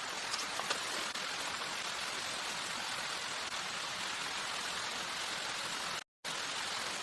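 Steady rain falling, an even hiss with a few faint drop ticks; it cuts out for a moment about six seconds in.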